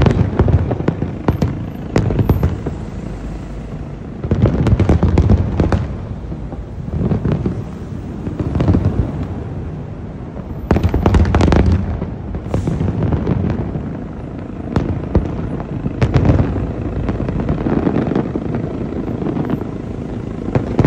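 Fireworks going off in a large display: many sharp bangs and crackles, bunched into loud volleys every few seconds over a steady low rumble.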